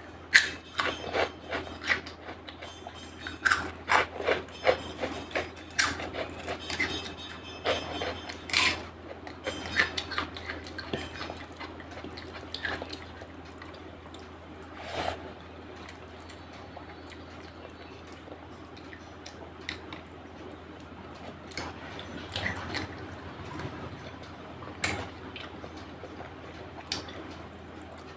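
Close-miked eating sounds of chicken curry with rice and papad: sharp, wet clicks and smacks of chewing and handling the food. They come thick and fast for the first twelve seconds or so, then only now and then.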